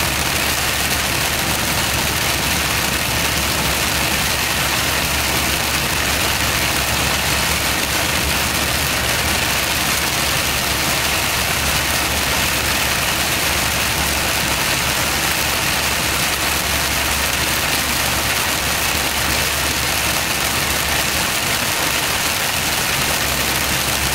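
Steady drone of a lorry's engine heard from inside the cab, with the even hiss of tyres on a rain-soaked road.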